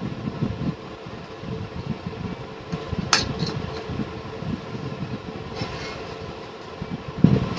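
Handling noise from a Falcon Condor PCP air rifle: one sharp click about three seconds in and a low thump near the end, over a steady background rumble and hum.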